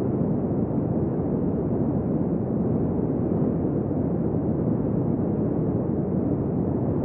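Desert wind blowing steadily, a deep, muffled rush with no gusts or breaks.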